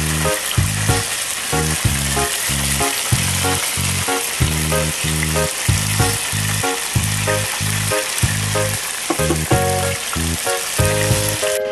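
Hot oil sizzling and crackling steadily as breaded chicken drumsticks deep-fry in a wire fryer basket, under background music with a steady beat; the sizzle cuts off abruptly at the very end.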